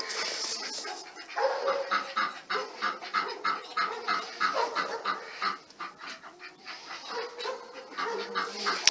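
Domestic hens clucking and calling: quick, short clucks at about three to four a second, with several longer drawn-out calls among them.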